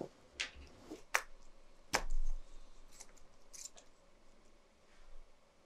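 Small sharp clicks and taps from a screwdriver and loose parts being handled while an LED projector headlight module is taken apart: four clicks in the first two seconds, then a brief scrape.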